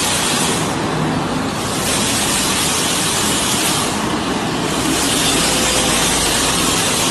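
Automatic rollover car wash running: the rotating brush and water spray make a steady rushing noise, with a higher hiss that swells and fades, about two seconds in and again from about five seconds on.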